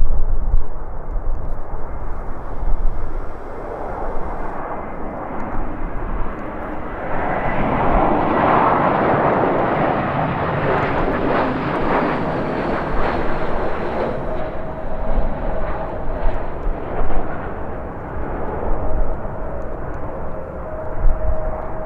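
Jet airliner passing, its engine noise swelling to a peak about a third of the way in and then slowly fading. Gusts of wind buffet the microphone with a low rumble at the start and again near the end.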